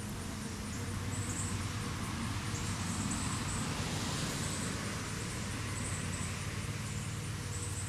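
Steady outdoor background noise: a low hum under a broad hiss, with short high-pitched buzzes now and then.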